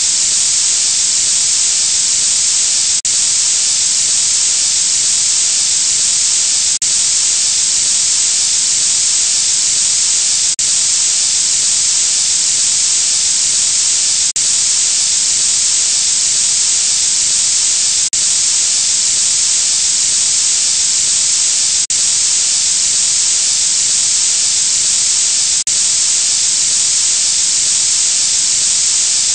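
Steady hiss of high-pressure water spray as in a car wash rinse, with a brief dip about every four seconds.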